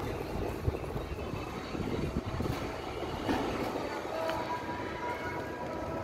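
Gusty wind blowing over the microphone: an uneven low rush that swells and eases.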